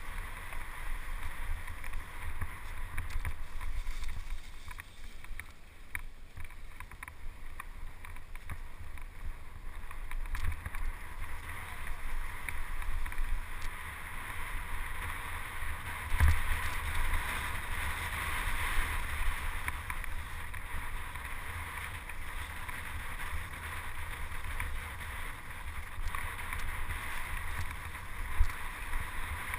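Mountain bike riding down a dirt trail: wind buffeting the microphone over a steady rush of tyre and frame noise, with small rattles throughout and a sharp knock about halfway through and another near the end.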